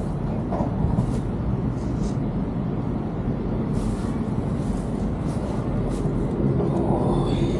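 Steady low rumble of city traffic, with a louder vehicle sound carrying a faint tone swelling near the end.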